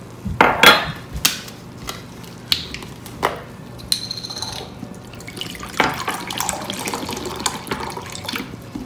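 Sharp knocks and clinks of glass measuring cups and the plastic blender jar being handled on a counter, with a brief ringing clink about four seconds in. Ice cubes crackle and tick in the freshly poured pineapple juice in the jar.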